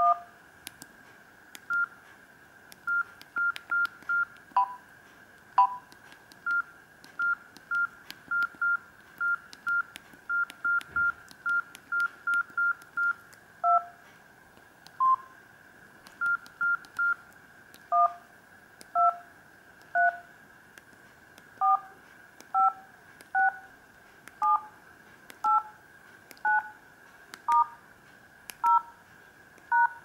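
Samsung GT-E2550 Monte Slider keypad tones: a quick run of short single beeps as keys are pressed, then, from a little past halfway, twelve two-tone touch-tone (DTMF) beeps about a second apart as the digits 1 to 9, star, 0 and hash are keyed in.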